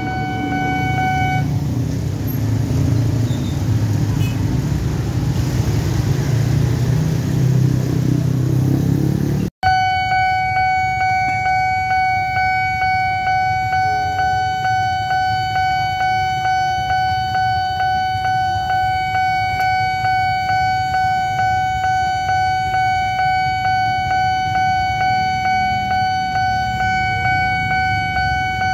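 A train rumbles past over a level crossing for the first several seconds. After a sudden break, the crossing's warning bell sounds a steady high electronic tone that pulses evenly, about three times every two seconds.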